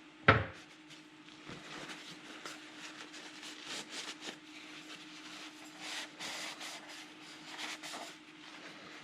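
A sharp knock, then several seconds of irregular rubbing and scraping as parts and tools are handled, over a steady low hum.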